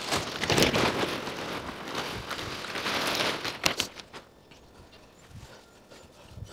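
Scratchy rustling and scraping from handling topsoil and the soil bag while spreading a layer over a lawn patch, loud for about four seconds with a few sharp clicks near the end, then only faint small taps.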